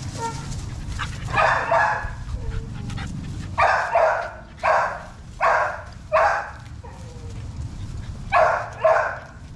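American Bully puppies barking in short, high yips, about eight of them in small clusters, some coming in quick pairs.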